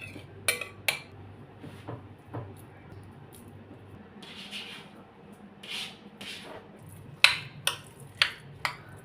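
Dishes and cutlery clinking and knocking: two sharp clinks near the start, soft scraping and brushing in the middle, then a quick run of four or five clinks near the end.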